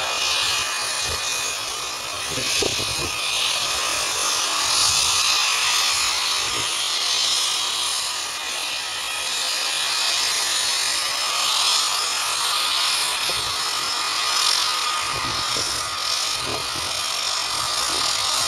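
de Havilland Canada DHC-3 Otter float plane's engine and propeller running with a steady drone as the plane slows on the water on its floats, with water spray hissing off the floats.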